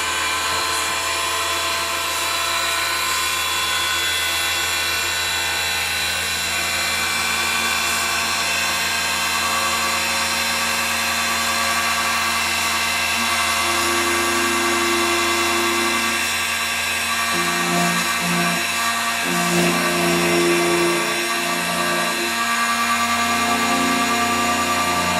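Multifunction key duplicating machine running, its motor and cutter whining steadily while a key is being cut.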